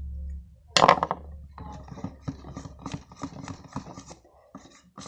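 A spoon knocking once against a container, then clicking and scraping in it at about three strokes a second as coloured glue is stirred.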